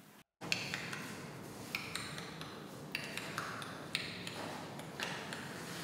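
A series of about ten light, irregularly spaced strikes on small hard objects, each with a brief high ring, over a steady hiss of room noise.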